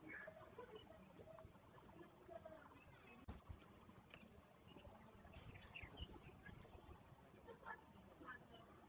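Near silence: quiet room tone with a steady high-pitched whine and faint distant voices, broken by a single sharp knock about a third of the way in.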